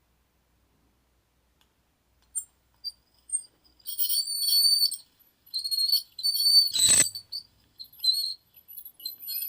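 Small handheld electric dental drill whining at a high pitch in short on-and-off bursts as it is worked on a tooth, with one sharp knock about seven seconds in.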